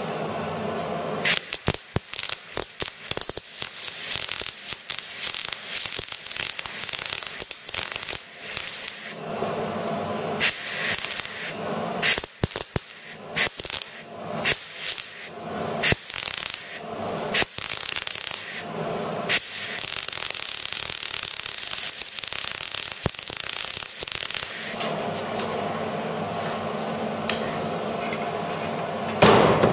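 MIG welder laying a plug (puddle) weld through a hole in a steel repair panel: the arc's steady crackle with sharp spatter pops, stopping about 25 seconds in.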